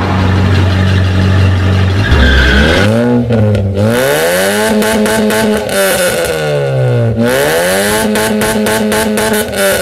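Sports car engine idling low for about two seconds, then revved up and down several times, its pitch climbing and falling in long sweeps, with short stretches of crackling.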